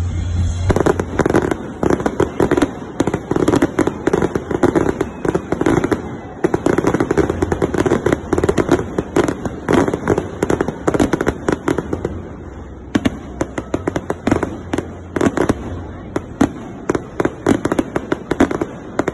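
Aerial fireworks going off in a rapid, dense run of sharp cracks and bangs from bursting shells, starting about a second in. There are short lulls around six and twelve seconds.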